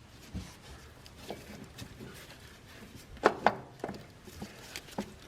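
Scattered clicks and knocks of metal parts and tools being handled while a starter motor is fitted, with two louder clanks a little over three seconds in.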